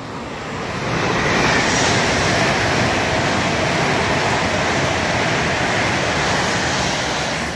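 A train passing through the station: a loud, steady rushing noise that builds about a second in, holds, and eases off near the end.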